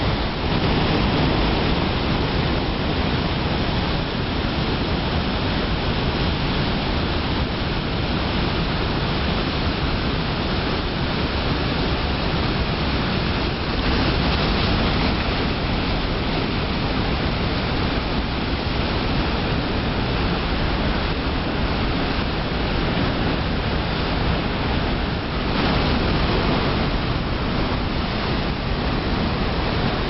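The Rhine Falls: a vast volume of water pouring down and churning in the basin below, a dense, steady rushing of white water.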